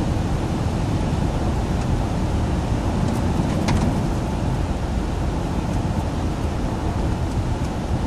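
Steady road and tyre noise with engine hum inside the cabin of a moving 2011 Acura TSX, driving at speed on a wet, snowy highway.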